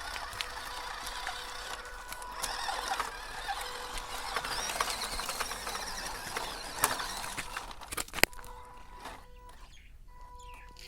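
Small RC truck's drivetrain running, with a steady whine under a busy crackle of clicks and ratcheting. A sharp click comes about eight seconds in, after which the crackle drops away and only the faint whine carries on.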